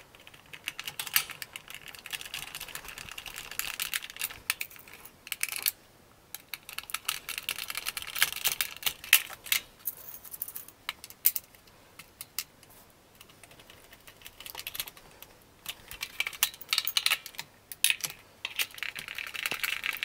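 Small screws being driven into the hard plastic body of a vintage Kenner M.A.S.K. Switchblade toy with a hand screwdriver: quick clicking and scraping in several stretches, with short pauses between screws.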